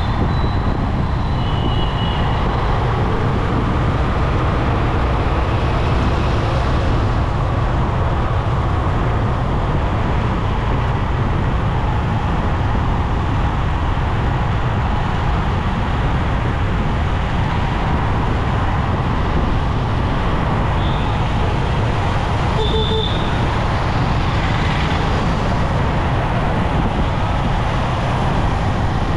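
Steady road and traffic noise from a moving motorcycle in city traffic, with a deep, continuous rumble. A few brief high-pitched tones rise above it near the start and again about three-quarters through.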